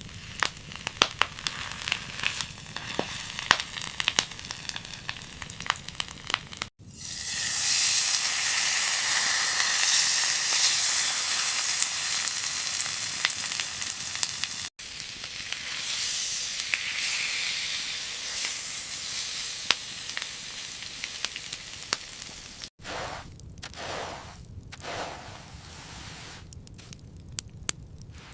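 Food frying in hot oil in a pan: scattered crackling pops at first, then a loud sizzle that starts suddenly about a quarter of the way in and carries on more softly later.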